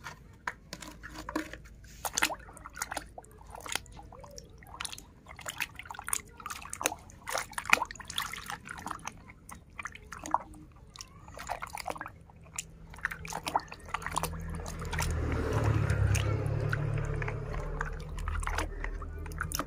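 Water splashing and dripping in a plastic bucket as a hand dunks and scrubs a muddy plastic toy truck. About fourteen seconds in it turns into steadier, louder sloshing as the toy is swished back and forth in the water.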